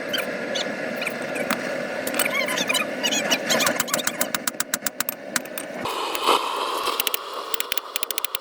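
Propane forge burner running with a steady hiss, with scattered sharp metallic clicks. About six seconds in the sound shifts higher and turns into rapid ticking.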